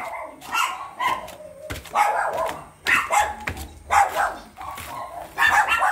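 Dog barking repeatedly, short barks about a second apart.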